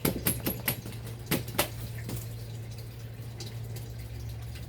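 A series of short, sharp taps and clicks from handling a plant pot and potting soil while repotting. They come quickly in the first two seconds, then thin out, over a steady low hum.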